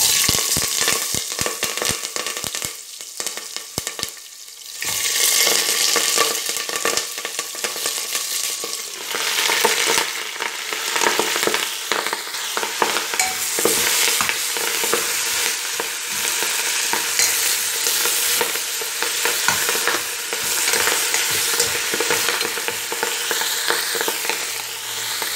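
Kohlrabi greens and sliced kohlrabi dropped into hot oil in a pressure-cooker pot, sizzling loudly at once, then frying while stirred with a metal ladle, with scraping and clicking against the pot. The sizzle eases for a moment a few seconds in, then rises again.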